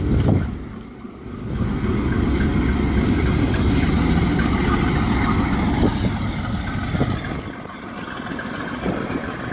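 Diesel locomotive engine running with a steady low rumble. It dips briefly about a second in and eases off near the end, with a few short knocks along the way.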